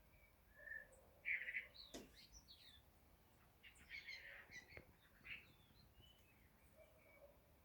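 Small aviary birds chirping and twittering faintly in short, scattered calls, with a sharp click about two seconds in.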